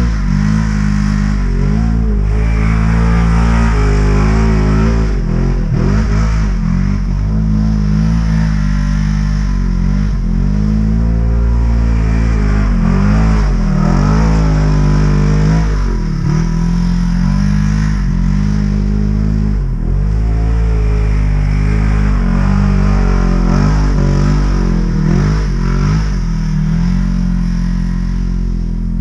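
Polaris RZR side-by-side engine revving up and down over and over as the machine is thrown around in the snow.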